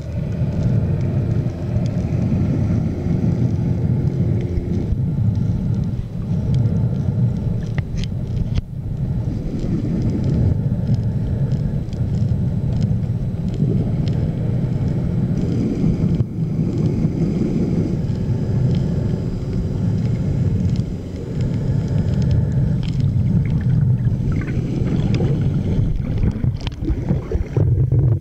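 Underwater recording noise: a steady low rumble, with a few faint sharp clicks here and there.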